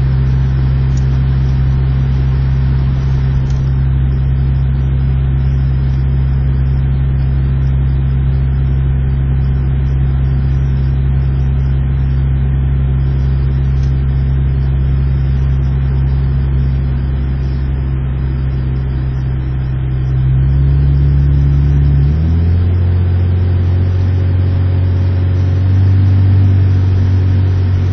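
Honda Civic engine and road drone heard from inside the cabin under moderate acceleration, steady and even, getting louder about 20 seconds in with a shift in its pitch a couple of seconds later. It runs smoothly, with none of the bogging or misfiring that the car shows when floored.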